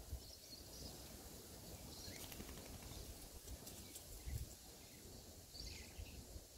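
Quiet bush ambience: a few faint, distant bird chirps over a low rumble.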